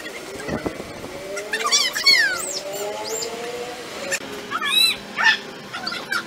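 Bird chirps: a series of short, quick rising-and-falling whistles, busiest a couple of seconds in and again near the end, over a faint low hum that slowly rises in pitch.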